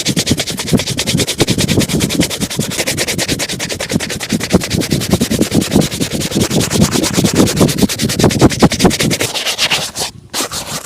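Shoe being brushed or buffed to a shine with rapid, regular back-and-forth strokes, stopping briefly near the end.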